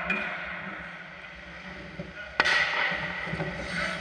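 One sharp crack of a hockey puck impact a little over two seconds in, standing out from the steady noise of the rink.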